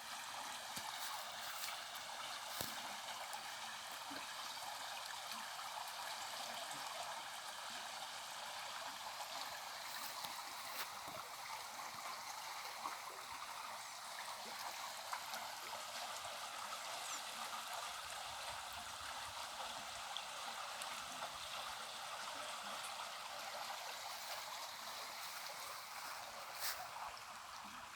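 Steady rush of running water, like a small stream, with a few faint clicks.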